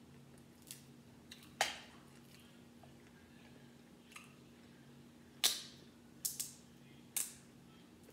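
Crab shell cracking and snapping as it is broken open with the fingers: about seven sharp, separate cracks, the loudest about one and a half and five and a half seconds in. A faint steady hum underneath.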